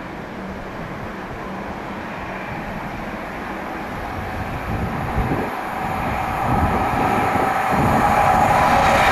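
A train approaching on the main line, growing steadily louder as its wheel-on-rail noise builds, with a few low thumps from about halfway in.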